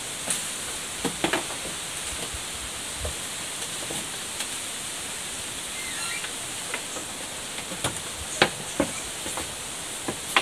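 Bamboo poles knocking and clicking as they are handled and lashed together with cord, in scattered single knocks with the loudest near the end, over a steady high hiss.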